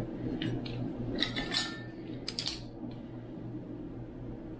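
Light clinks and clicks of a bottle of browning and a plastic measuring spoon being picked up and opened over a mixing bowl: a handful of sharp knocks in the first three seconds, one with a short ring, then only a steady low hum.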